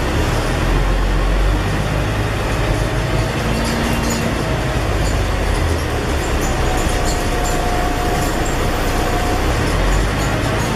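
Scania N113 double-decker bus under way, heard from inside the cabin: a steady low diesel and drivetrain rumble with road noise and light rattling, and a faint high whine that comes and goes.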